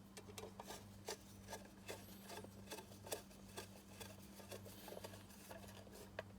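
Faint, irregular small clicks and scrapes of hand work fitting the last small part onto a plastic ECU case, over a steady electrical hum.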